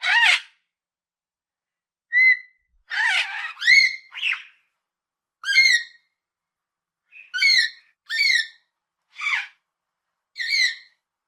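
Parrot giving a string of short, pitched squawking calls, about ten in all, some bending up or down in pitch, with brief silences between them.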